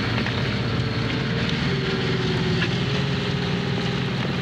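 Tractor engine running steadily under load while its front bulldozer blade pushes through a pile of earth and stones.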